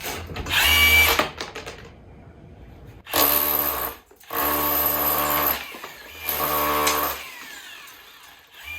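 Hammer drill fitted with a chisel bit, run in short bursts of about a second each, five times, with brief pauses between; each burst is a steady, rapid hammering. It is being tried out with the new chisel bit.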